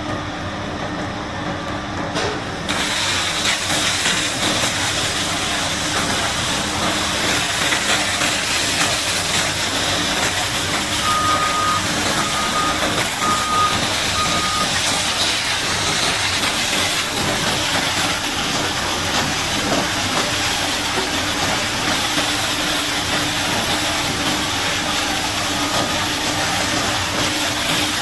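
High-pressure water jet hissing steadily against a bulldozer, switching on about three seconds in, over a heavy machine's engine running. Midway, four short beeps of a reversing alarm.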